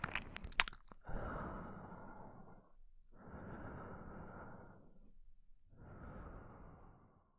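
A man's voice close to the microphone: a few sharp wet mouth clicks in the first second, then three long, slow, breathy sighs, each fading out and the last the quietest.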